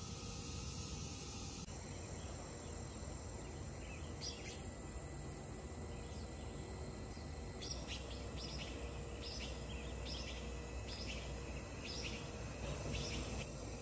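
Outdoor background noise with a small bird chirping: short, high chirps that start about four seconds in and repeat about twice a second through the second half.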